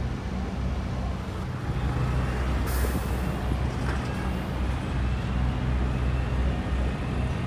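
Steady low engine hum, with a short hiss of air about three seconds in.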